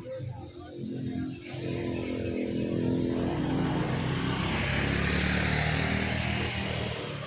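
A motor vehicle passing close by: its engine grows louder to a peak about five seconds in, then fades.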